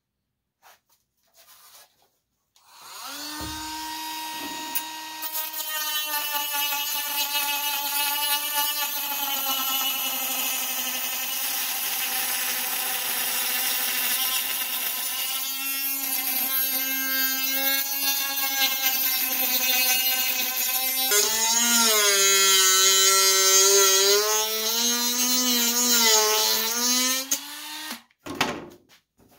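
Dremel rotary tool with a cutting disc starting up a few seconds in and running at a steady pitch while it trims a plywood piece, the pitch wavering up and down under load for the last several seconds before it stops near the end.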